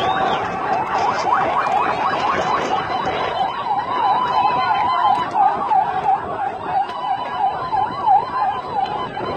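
Vehicle siren in a fast yelp, its pitch rising and falling about three times a second and becoming clear about three seconds in, over the noise of a marching crowd.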